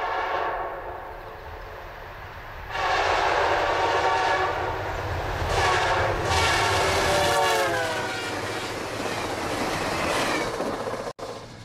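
A VIA Rail F40PH-2 diesel locomotive's air horn sounds as the passenger train approaches: a blast ending about half a second in, then two long blasts, the chord dropping in pitch as the locomotive passes. Under it runs the low rumble of the diesel and the cars on the rails.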